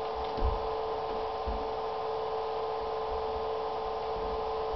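A steady electrical-sounding hum with several tones, over a few soft low thumps of a kitten pouncing in an empty bathtub, the strongest about half a second in.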